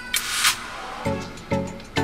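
Background music with a steady beat, with a short hissing swell near the start.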